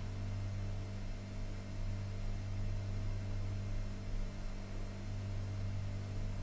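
A steady low electrical hum, with a faint even hiss under it.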